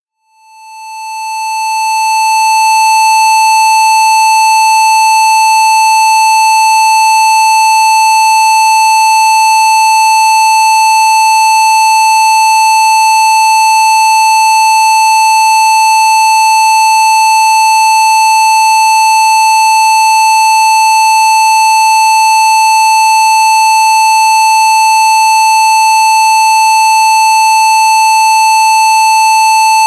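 A steady, loud electronic test tone near 880 Hz, a Rife 'healing frequency', fading in over the first two to three seconds and then held unchanging, with fainter higher overtones.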